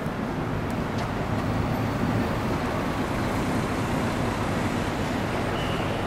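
Steady road-traffic noise from a gridlocked street: buses and cars idling and creeping along in a jam, with a low engine hum underneath. A thin high tone comes in near the end.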